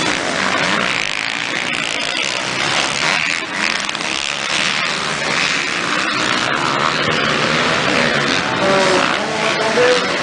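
Motocross bikes racing, their engines revving loudly and steadily.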